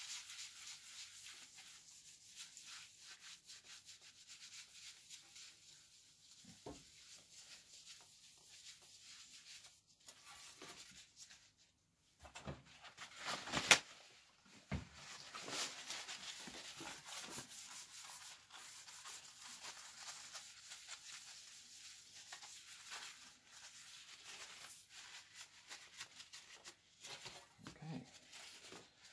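A cloth rubbing over a coffee roaster's metal plate in repeated wiping strokes, scrubbing off brown roast residue. The sound is faint and scratchy, with one sharp knock about fourteen seconds in.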